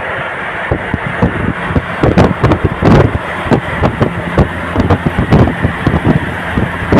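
Traffic and wind noise from a car moving along a highway beside a bus, with wind buffeting the microphone in irregular loud gusts from about two seconds in.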